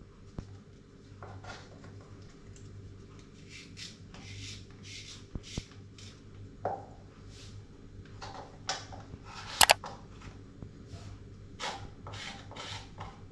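A small hand-held carrot cutter scraping along a raw carrot in repeated short strokes, about two a second, with one sharp click a little under ten seconds in.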